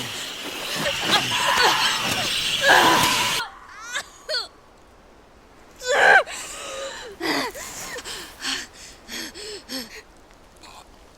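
A young woman gasping, crying out and panting in fear or pain, with a loud scream about six seconds in and short, ragged breaths after it. The first few seconds are a dense, noisy rush under her cries that cuts off suddenly.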